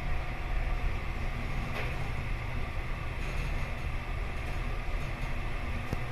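Mitsubishi Grandy passenger elevator car travelling down, with a steady low rumble of the ride inside the car and a faint click or two.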